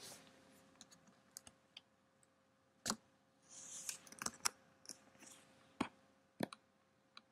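Scattered sharp clicks and taps of a computer mouse and keyboard, a dozen or so, irregularly spaced, with a brief rustle near the middle. A faint steady hum lies underneath.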